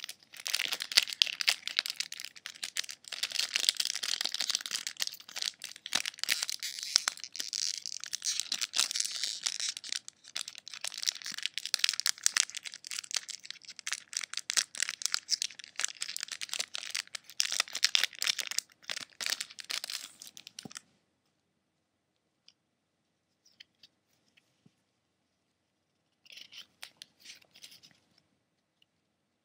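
Foil wrapper of a Pokémon Base Set booster pack being torn open and crinkled by hand: a dense crackling rustle for about twenty seconds that stops suddenly. A brief fainter rustle follows near the end.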